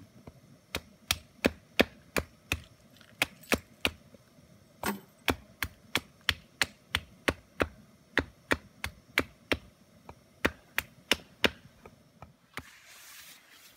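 Hatchet chopping at a stick on a log chopping block: a long run of sharp wooden knocks, about three a second, with a short break partway through. A brief rustle follows near the end.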